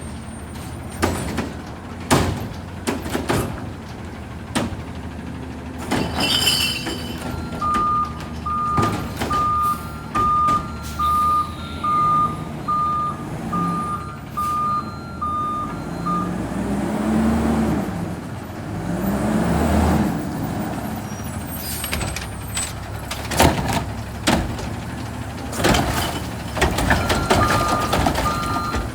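Autocar ACX Xpeditor garbage truck with a McNeilus front-loader body at work: a run of about a dozen reversing beeps, then the engine revving up and down twice, with sharp bangs and knocks scattered through. The reversing beeper starts again near the end.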